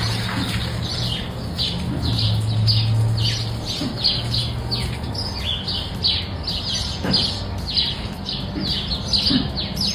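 A bird chirping over and over, short high chirps that sweep downward, about three a second, over a low steady hum.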